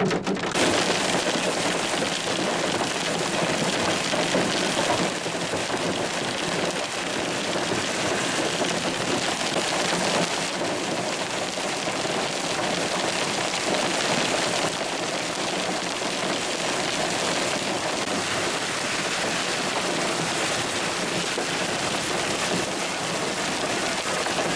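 Severe hail falling heavily, a dense steady hiss of hailstones striking roof, pavement and grass, mixed with rain. It shifts slightly in tone a few times.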